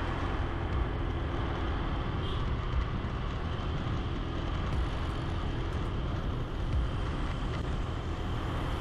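Automatic scooter's small engine running steadily on the move, under an even rush of road and wind noise.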